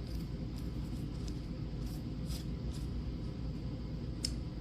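Steady low background rumble with a few faint, light clicks scattered through it, from oracle cards being handled.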